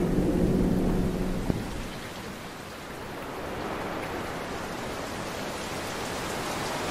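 Thunder rumbling low and loud for about a second and a half, cut off by a sharp click, then steady rain hiss.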